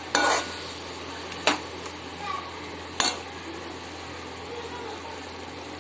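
Slotted metal spoon clanking and scraping against an aluminium wok while stirring chicken pieces: three sharp strokes, right at the start, about 1.5 s in and about 3 s in, over a faint steady frying sizzle.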